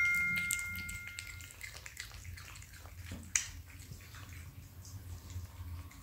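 Faint, irregular wet clicks and smacks of a cat eating salmon, with one sharper click about three and a half seconds in. A two-note chime rings out over the first second and a half.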